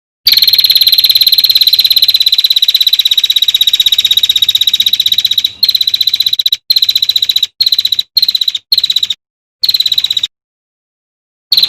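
A songbird's rapid, machine-gun-like trill of tight repeated notes at one steady high pitch, the dense 'tembakan rapat' song used as masteran for competition birds. One long unbroken run of about five seconds is followed by a string of shorter bursts separated by brief pauses.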